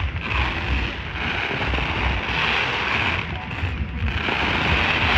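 Fireworks display: a dense crackling hiss that swells and dips, over a low rumble, with crowd voices mixed in.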